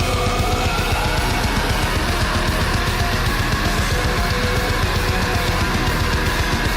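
Heavy metal music with distorted electric guitar and a fast drum beat.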